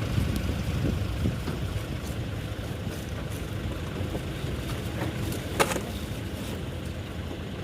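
Steady low rumble and noise of a motor vehicle running, with a single sharp click a little over five seconds in.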